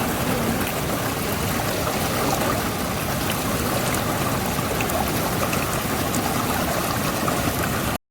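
Steady rushing of running water with no break, cutting out suddenly just before the end.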